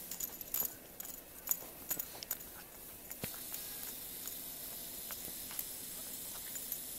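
Light crunching clicks with a faint jingle as a small dog bounds off through fresh snow, thick in the first two to three seconds, with one sharper knock a little after three seconds. After that only a steady faint hiss with a few light ticks remains.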